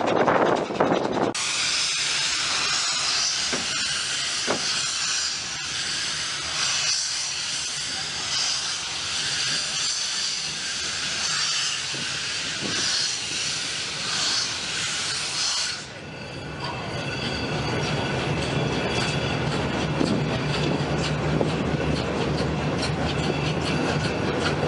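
Steam locomotive hissing out steam right beside a moving coach, loud and steady, then cutting off about two-thirds of the way through. After that the coach's running rumble and the clicking of wheels over the rails are left.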